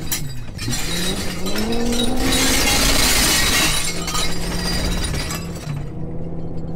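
A Ford Excursion's engine revs up, its pitch rising, while loose glassware rattles in the cargo area. About two seconds in comes a loud crash of glass smashing and shattering that lasts over a second. Then the engine settles to a steady run.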